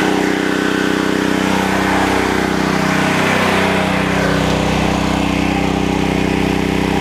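PowerMax XP8500E portable generator running steadily under heavy load, its engine working to supply battery chargers drawing a few thousand watts.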